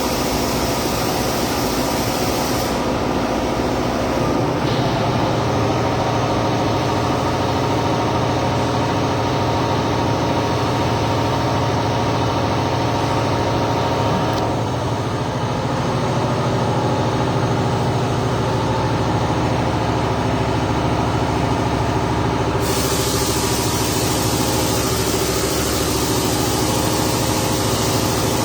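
Steady machine hum of many tones under a constant hiss, changing abruptly a few times; near the end the hiss turns brighter and sharper.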